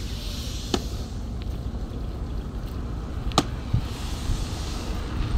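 Low, steady rumble of road traffic passing on the tarmac road, broken by two sharp cracks, one about a second in and one past three seconds.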